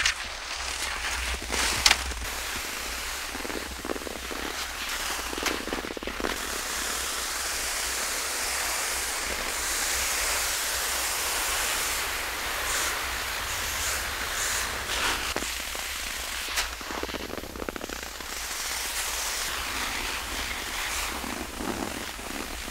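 Cross-country skis sliding over firm, crusted spring snow: a steady hissing scrape with scattered crackles and clicks.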